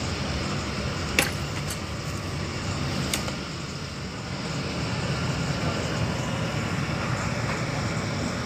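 Steady low rumble of supermarket background noise, with a sharp click about a second in and two fainter ticks after it.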